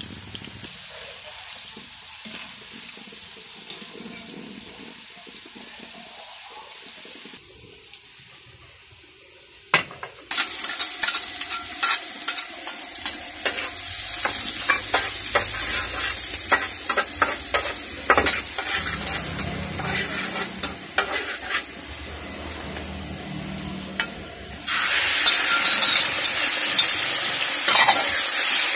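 Oil sizzling in pans: first a steady hiss of potato sticks deep-frying. Then a metal spatula scrapes and clicks against a frying pan as garlic is stirred in hot oil. About three-quarters of the way through, a sudden, much louder sizzle starts as beef pieces go into the hot pan.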